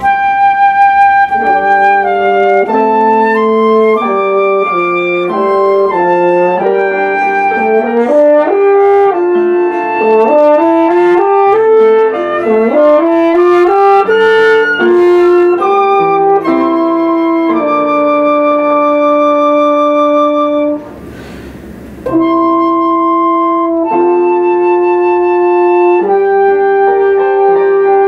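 A live instrumental trio of flute, French horn and piano playing a melody together, with a short break of about a second roughly three-quarters of the way through.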